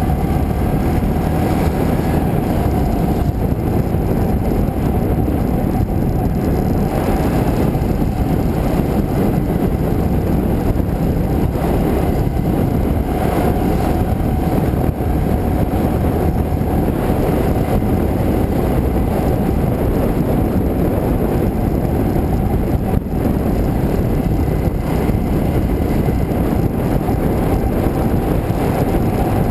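Motorbike cruising along a road, heard from a camera mounted on the bike: a steady engine drone buried in a dense, even rush of wind noise on the microphone.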